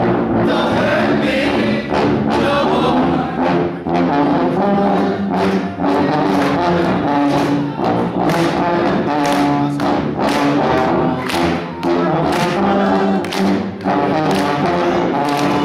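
Brass-led music with a steady beat.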